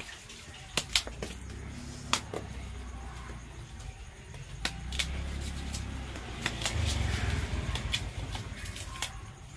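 Knife cutting and peeling fresh cassava roots: scattered sharp clicks and scrapes of the blade against the root. Under them a low rumble builds about a second in, is strongest in the second half, and fades near the end.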